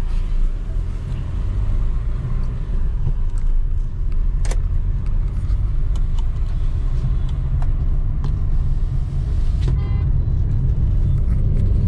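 Maruti Suzuki Ciaz heard from inside the cabin while driving: a steady low rumble of engine and road noise, with a sharp click about four and a half seconds in.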